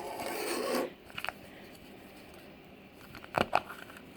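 Toy packaging being opened by hand: a short rustle of plastic wrapper at the start, then a few light clicks and taps as the contents are handled, with a pair of them past the middle.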